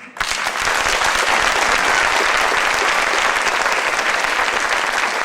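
Audience applauding at the end of a stage song, starting suddenly and holding steady.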